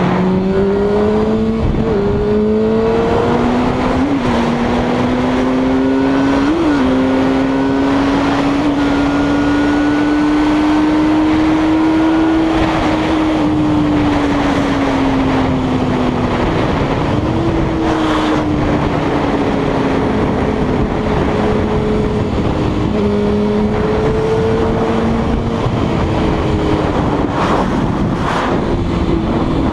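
Motorcycle engine heard from the bike's own camera, pulling hard, its pitch climbing over the first few seconds and then cruising fairly steady, under constant wind rush on the microphone.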